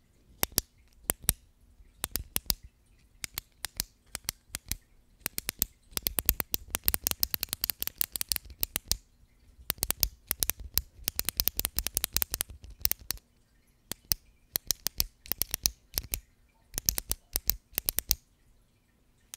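Close-miked ASMR tapping and clicking from a small black pen worked at the lips right in front of the microphone: sharp, irregular clicks, sparse at first, then coming in quick dense runs in the middle, then scattered again.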